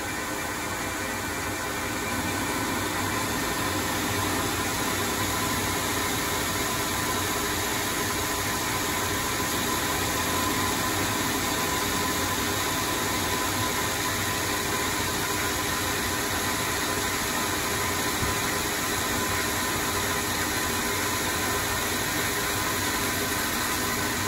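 Proto-Trak L2 CNC lathe taking an automatic roughing pass on a propeller shaft: the spindle runs steadily while the turning insert cuts along the shaft, an even running noise with a faint steady whine, a little louder after about two seconds.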